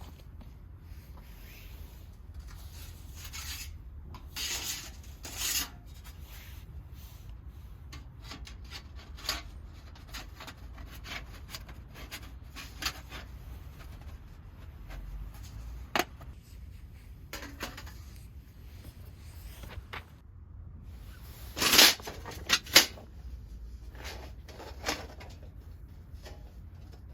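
Intermittent scraping and rubbing on wood, a series of short strokes with a few sharp clicks. The loudest is a half-second scrape about two-thirds of the way in, followed quickly by two sharp clicks.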